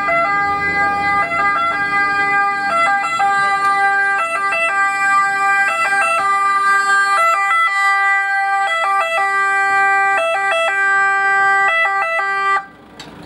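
Ambulance two-tone siren sounding as the ambulance drives up, switching back and forth between a higher and a lower pitch, then cutting off suddenly near the end.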